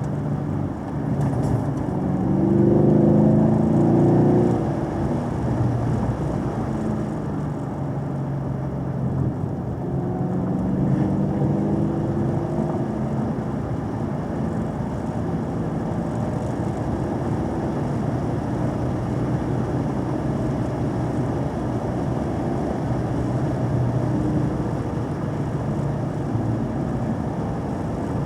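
Car engine accelerating, its pitch rising loudest about two to four seconds in and again around ten seconds, then settling back, over steady road and tyre noise.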